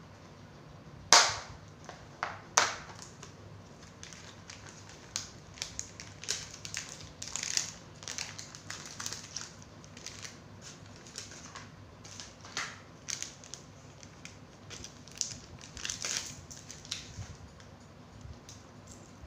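A plastic jewellery box clicking open with two sharp snaps about a second in, then a long run of crinkling and crackling from clear plastic pouches being handled and opened.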